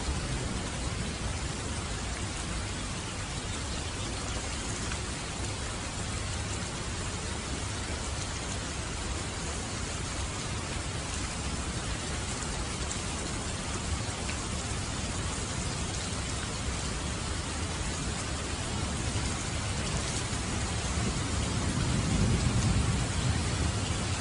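Steady rain falling, an even hiss of drops on surfaces. About 21 seconds in, a low rumble of thunder swells up and fades.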